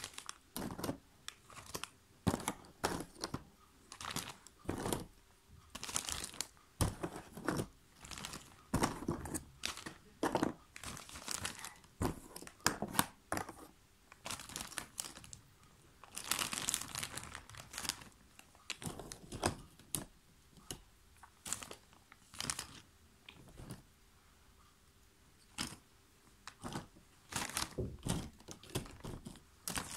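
Clear plastic bag of jigsaw puzzle pieces crinkling in short, irregular bursts as it is handled and opened, with a short lull about three-quarters of the way through.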